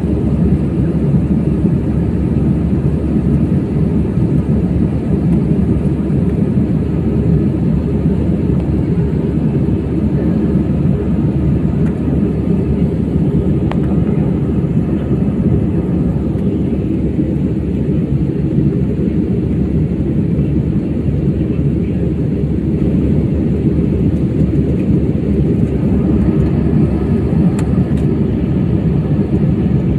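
Passenger airliner cabin noise in flight: a steady, loud, low drone of jet engines and rushing air.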